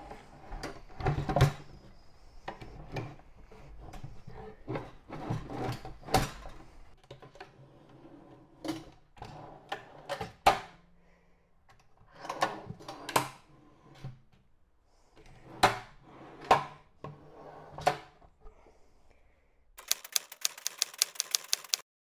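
Irregular clicks and knocks of hand work on a metal drawer slide, plywood and screws, some in quick clusters. Near the end comes a fast, even run of sharp clicks, and then the sound cuts off.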